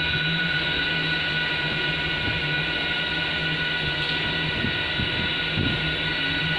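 Mitsubishi elevator car travelling down between floors: a steady hum with a low drone and several steady high-pitched whining tones, with a few faint low knocks.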